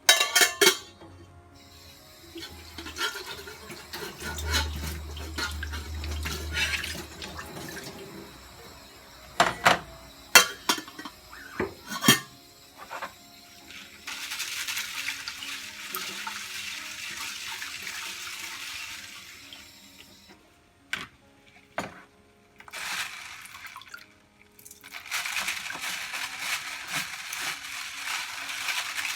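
Kitchen tap running into a sink in two stretches, after a series of sharp knocks and clinks from items being handled.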